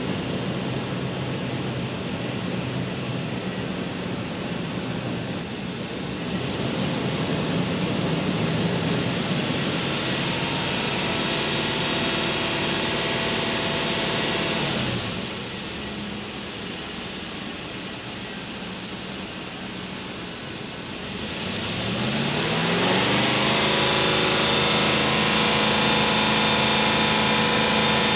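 Lexus GX470's 4.7-litre V8 through its stock exhaust, held at raised revs, then dropping back to a steady idle about halfway through. About three quarters of the way in it revs up smoothly again and holds at the higher speed.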